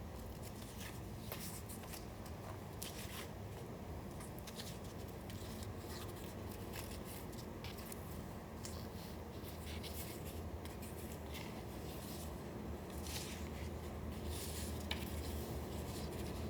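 Paper being handled for collage: irregular short, crisp rustles and scrapes of paper, over a steady low hum.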